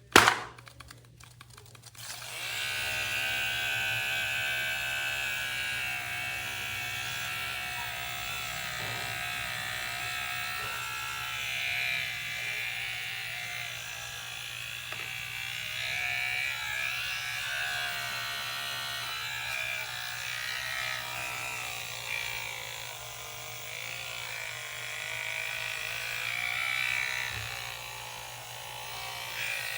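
A sharp click, then an electric hair clipper starts about two seconds in and buzzes steadily, its level swelling and dipping a little.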